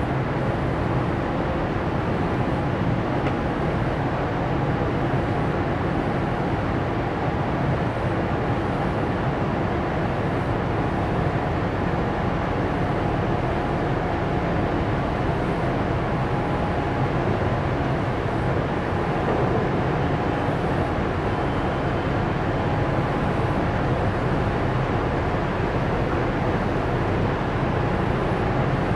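Cargo ship's diesel engine running steadily, a constant low hum with a few held tones.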